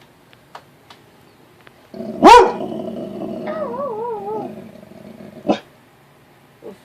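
Black Labrador giving a low warning growl with one loud bark about two seconds in. The growl then wavers up and down in pitch for about a second, and a short sharp sound follows near the end.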